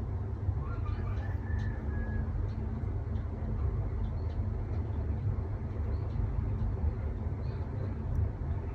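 Steady low background rumble, with a bird chirping briefly and faintly about a second in.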